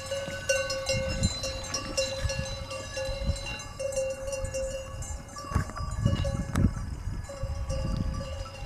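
Sheep bells on a grazing flock clanking and ringing, many bell tones overlapping, with intermittent low rumbles underneath.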